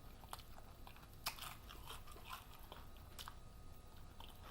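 A person chewing a mouthful of taco close to the microphone: scattered faint crunches and mouth clicks, the sharpest about a second in.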